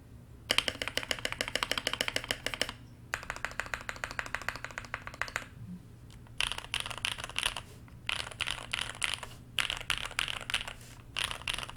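Fast typing on a Keychron Q1 mechanical keyboard fitted with lubed linear CreamWICKS frankenswitches (JWICK black housings, NK Cream stems, KTT three-stage springs), tape-modded and dampened with paper towel in the case. The keystrokes come in about six quick bursts, each a second or two long, with short pauses between them.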